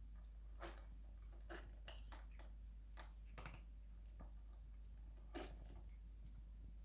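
A cat chewing its food: faint, irregular crunches, about seven in a few seconds, over a steady low hum.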